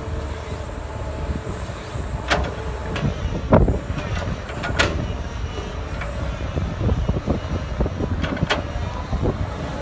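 Doosan DX225LCA crawler excavator's diesel engine running under digging load as the bucket works a pile of dirt and rock. Several sharp clanks and knocks of the bucket and stones come through, the loudest about three and a half seconds in.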